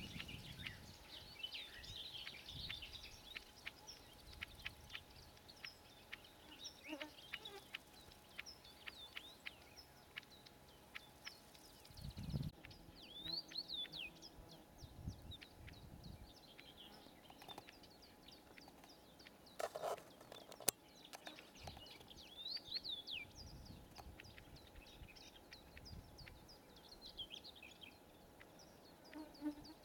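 Faint song of a bluethroat: phrases of quick chirps, whistles and clicks, repeated in bursts with pauses between. A few low thumps and one sharp click are also heard.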